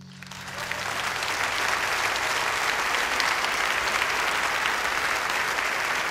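Audience applauding at the end of a live song, rising to full strength within about a second and a half as the last guitar chord dies away underneath, then holding steady.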